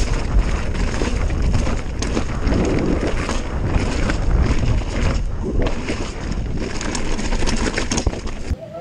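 Wind rushing over the microphone during a fast mountain-bike descent on a rough dirt trail, under the rumble of the tyres and the rattle of the bike over rocks and roots. It cuts off abruptly near the end.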